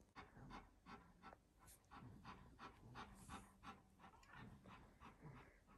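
An Alaskan malamute panting quickly and evenly, about three or four breaths a second, faint.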